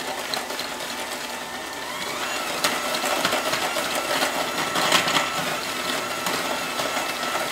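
Electric hand mixer running, its beaters creaming shortening, sugars and egg in a glass bowl. The motor's whine rises a little about two seconds in and then holds steady. The beaters click now and then against the glass.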